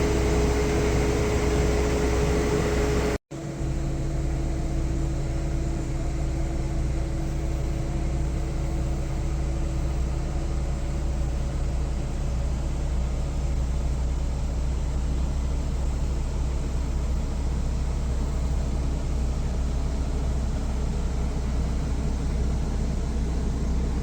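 A New Holland CX8.80 combine harvester's 8.7-litre diesel engine running steadily, with a deep, even hum. The sound cuts out for a split second about three seconds in, then carries on unchanged.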